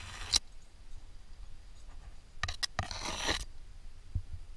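A rock climber's hands and body scraping and rubbing against the rock face in short spells while moving up, with a couple of soft knocks near the end.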